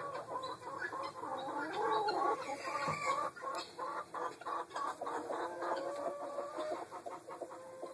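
Chickens clucking, with a quick run of short clucks about halfway through.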